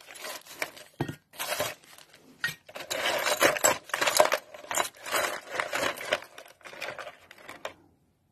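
Small metal parts, salvaged solenoid contactors and bolts, clinking and rattling against each other in a container as a hand rummages through them. A quick, uneven run of clinks that stops just before the end.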